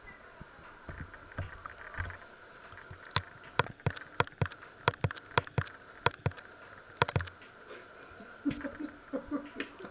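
A run of sharp, irregular clicks, about three a second, lasting about four seconds in the middle, with softer knocks before and after.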